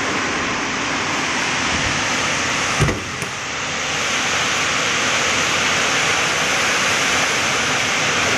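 Heavy rain and storm wind, a loud steady rushing hiss, with a single thump a little under three seconds in.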